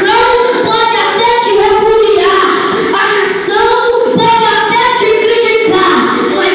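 A boy singing into a microphone through a loudspeaker, in a high voice with long held notes.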